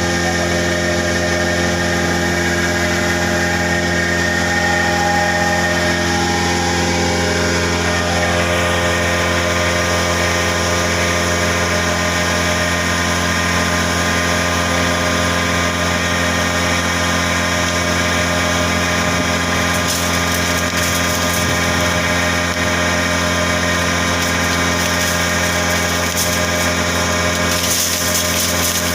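Wood chip grinder machine running steadily: an even, loud mechanical hum with a whine of several steady tones. About twenty seconds in, a harsher hiss joins, growing stronger near the end.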